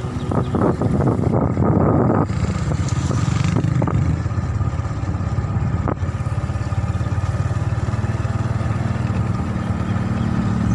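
A vehicle engine running steadily with a low rumble, heard from the moving vehicle. There is a burst of wind rushing over the microphone in the first two seconds.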